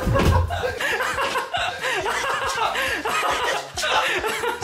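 Several people laughing hard, in loud, broken bursts of voice.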